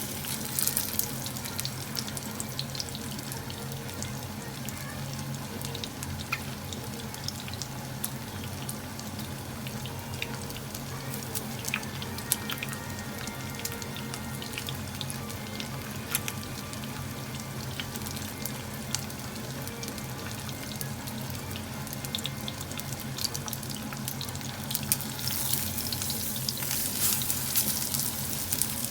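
Chicken thighs frying in hot oil: a steady bubbling hiss with scattered sharp crackles and pops, growing louder near the end. A steady low hum runs underneath.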